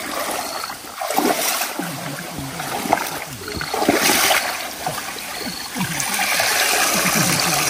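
Shallow muddy water splashing and sloshing irregularly as people wade through a draining fish pond with hand nets.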